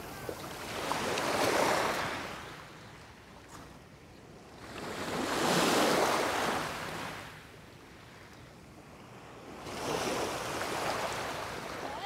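Small waves washing up onto a gravel beach, three times about four to five seconds apart, each a rising and fading hiss.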